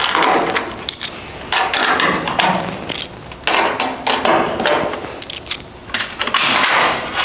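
Power tool cutting out old sheet metal from a car roof: rough, clattering metallic cutting noise in about four stretches, each separated by a brief pause.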